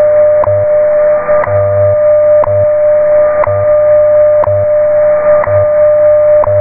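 Shortwave time-signal broadcast from NIST station WWV, received in AM on a software-defined radio. A steady tone runs throughout, with a short tick every second. Beneath it a low hum pulses on and off in pulses of different lengths: the station's time code.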